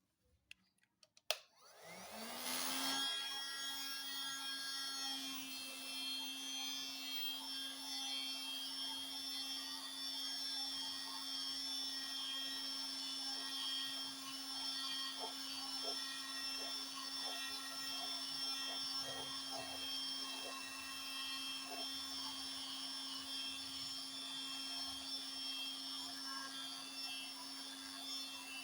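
Electric heat gun switched on with a click about a second in, its fan motor spinning up and then running with a steady whine, blowing hot air to darken faded black motorcycle plastic.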